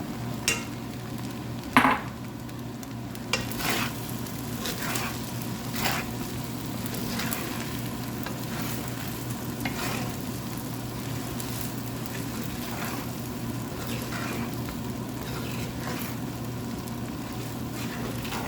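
Fried rice with shrimp and fish cake sizzling in a hot pan while a spatula stirs and scrapes through it, in irregular strokes. There is one sharp knock of the utensil against the pan about two seconds in.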